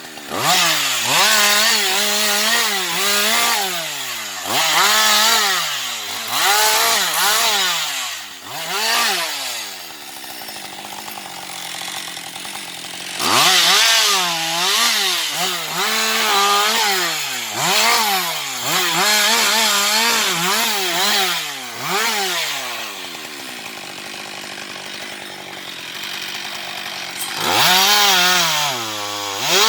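Husqvarna 560XP two-stroke chainsaw revving up and falling back again and again, about once a second, with two quieter stretches of steadier, lower running, about a third of the way in and again late on.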